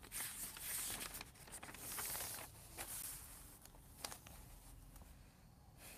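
Paper rustling as a page of a printed question paper is turned over, for about three seconds, followed by a couple of light clicks.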